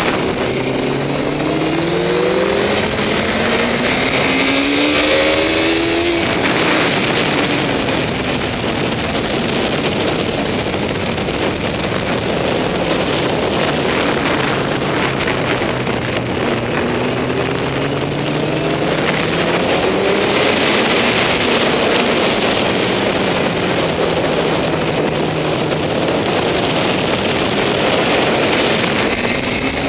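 Honda CBR954RR's inline-four engine under hard acceleration on track, its pitch climbing for about six seconds, dropping off, then climbing again midway, with wind rushing over the microphone throughout.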